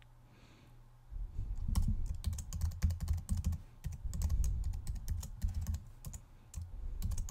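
Computer keyboard typing: quick runs of key clicks with short pauses, starting about a second in, as a random password is typed.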